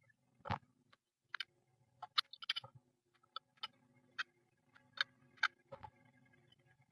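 A series of about a dozen irregular sharp clicks and taps over a faint low hum.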